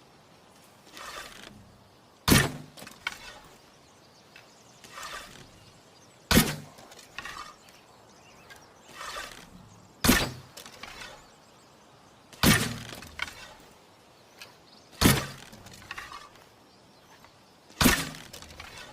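Homemade tree-branch bow and arrow shot six times: each shot is a sharp snap, preceded by a soft rustle and followed by a few lighter clicks.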